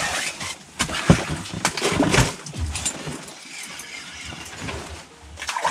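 Rustling of heavy winter clothing and knocks of fishing gear being handled, with the loudest bumps about one and two seconds in.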